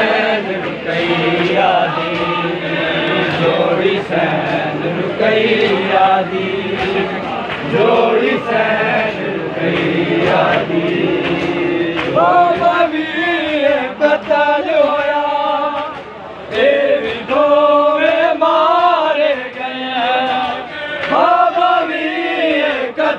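Crowd of men chanting a Punjabi noha, a Shia mourning lament, in unison. From about halfway the melody comes through more cleanly.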